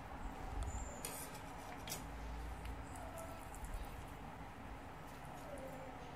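Faint food-preparation handling sounds: a knife slitting open fried tofu puffs and a spoon working minced pork filling in a glass bowl, with two soft clicks about a second in and a few low bumps.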